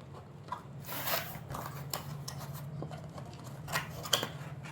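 Plastic clicks and rustling as a toy gun and its bullet set are handled, a few sharper clicks among them, over a steady low hum.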